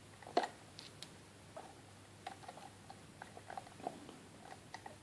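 Faint metallic clicks and ticks of a lock pick and tension wrench working in the keyway of a 70mm Brinks padlock, with one sharper click about half a second in.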